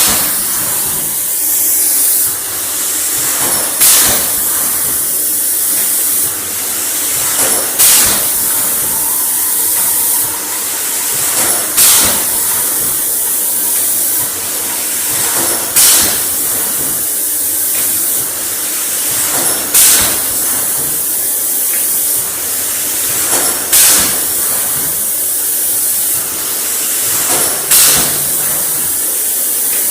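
Mineral water production machine running in a regular cycle. A steady high hiss runs throughout, with a sharp louder burst of hiss about every four seconds and weaker ones halfway between.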